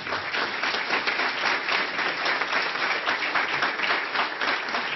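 A large audience applauding with dense, steady clapping.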